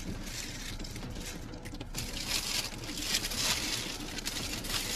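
Plastic carrier bag and paper food wrapping rustling and crinkling in short bursts as takeaway snacks are unwrapped by hand.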